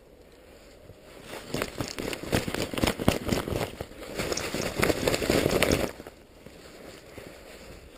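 Rustling and crackling of a paragliding harness and its fabric being handled and lifted close to the microphone, with snow crunching. It starts about a second in and stops abruptly near six seconds.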